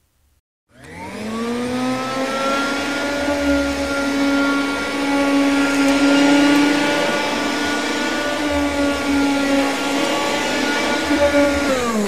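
Cordless stick vacuum cleaner switched on and pushed over a carpet: its motor spins up with a rising whine about a second in, runs at a steady high whine, then winds down in pitch as it is switched off near the end.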